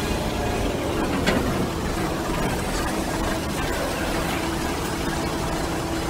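Concrete mixer truck's diesel engine running steadily at low revs, a continuous rumble with a faint hum.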